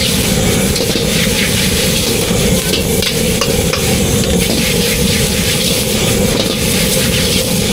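Food sizzling and crackling on a hot pan or griddle, over a steady low drone.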